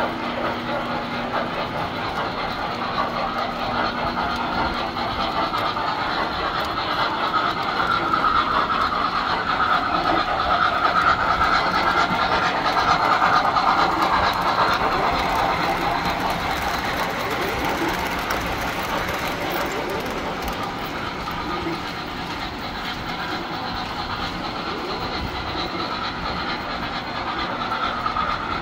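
Tinplate model trains running on three-rail track: a steady whir of electric motors and metal wheels rolling over the rails, growing louder about midway as a train passes close.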